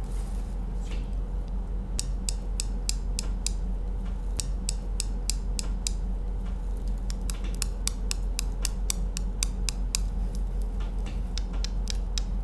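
Manicured fingernails tapping on a hard surface: quick runs of sharp clicks, several a second, broken by short pauses. A steady low hum lies underneath.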